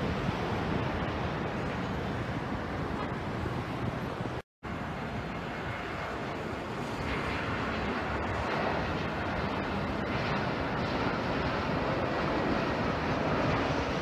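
Jet airliner on approach with its landing gear down, a steady rush of engine noise, broken by a brief total dropout about a third of the way in.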